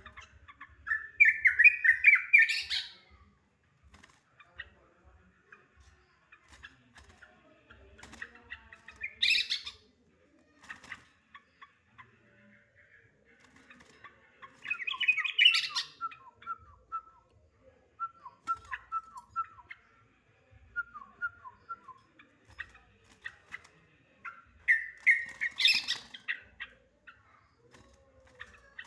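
Yellow-vented bulbul (trucukan) giving four bursts of excited, harsh chatter, each a second or two long and rising in pitch at the end. In the middle stretch, runs of short down-slurred bubbly notes fall between the bursts. This is the agitated 'ngekek' chattering kept as a lure call to set other trucukan calling.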